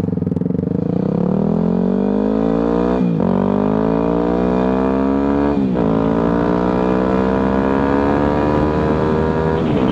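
2009 Yamaha WR250F's single-cylinder four-stroke engine accelerating through the gears: the revs climb, drop sharply at an upshift about three seconds in and again near six seconds, then climb slowly and steadily.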